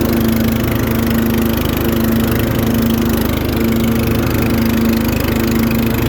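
Riding lawnmower's 14.5 hp Briggs & Stratton single-cylinder overhead-valve engine running steadily at an even speed.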